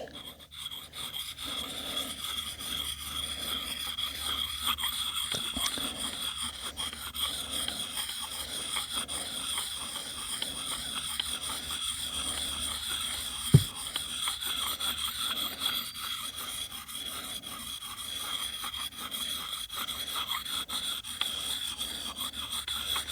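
Hand sharpening stone rubbing in long, flat circular strokes along the carbon-steel edge of a Fiskars X11 hatchet: a steady wet scraping that rises and falls with each stroke. One sharp click a little past halfway.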